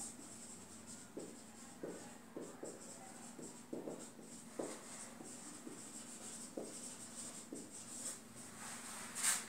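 Marker writing on a whiteboard: faint, irregular short strokes as a phrase is written out.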